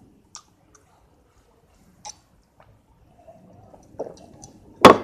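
Boys gulping drinks from steel tumblers: faint swallowing and slurping with a few small clicks, then a knock and a loud sharp knock near the end.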